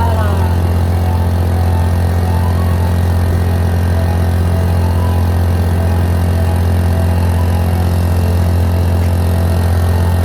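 A motor running steadily, a constant low hum with no change in speed.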